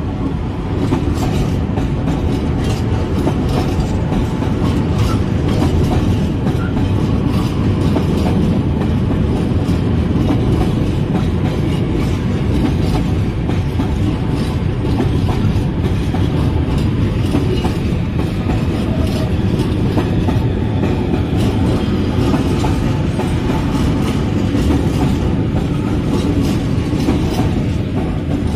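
Freight train of open-top coal wagons rolling past close by, steel wheels clicking over the rail joints in a steady clickety-clack over a continuous rolling noise.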